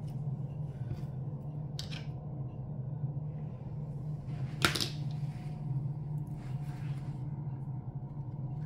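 Light handling sounds of fingers tucking small flower sprigs into a corsage: soft rustles and taps, with one sharper click about four and a half seconds in, over a steady low hum.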